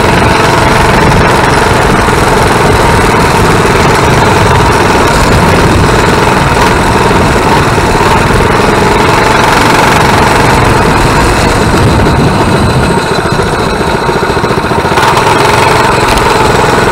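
Coleman mini bike's small single-cylinder four-stroke engine running steadily under way, loud and close to the microphone. The engine note eases for a couple of seconds about three-quarters through, then picks back up.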